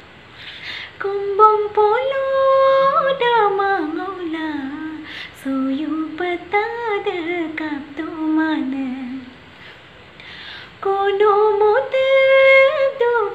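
A woman singing solo and unaccompanied, in long held notes that glide between pitches. She pauses for breath about nine seconds in before starting the next phrase.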